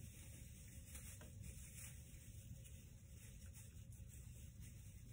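Faint rustling of artificial Christmas tree branches being fluffed out: soft, irregular brushing strokes over a low hum.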